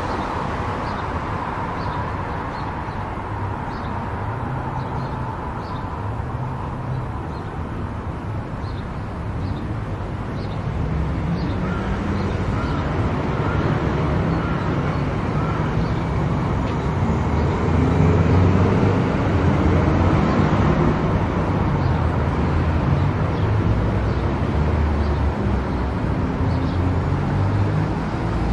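Car driving on an expressway: steady tyre and engine noise with a low rumble, growing a little louder about ten seconds in.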